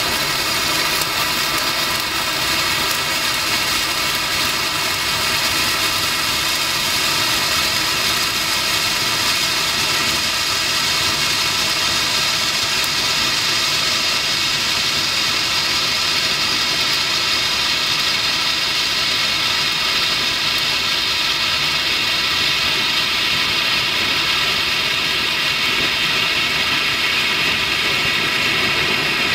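Yellow Tropic Bengal BF1 flare burning with a steady, loud rushing hiss.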